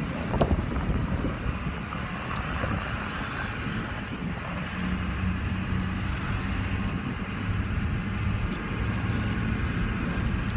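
Engine and road noise heard inside the cab of a moving truck: a steady low hum with tyre rumble.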